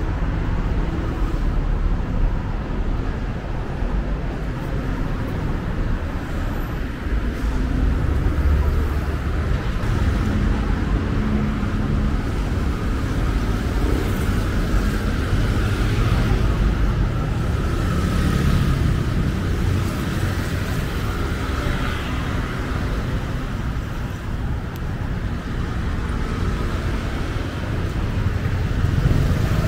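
Busy city road traffic: cars and motorbikes passing in a continuous rumble that swells as vehicles go by, busiest around the middle.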